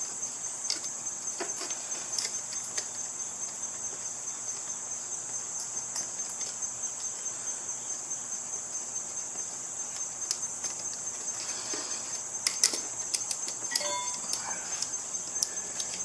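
Steady high-pitched trilling of insects, with a few sharp clicks of hand tools on the scooter's carburettor clamps about twelve to fourteen seconds in.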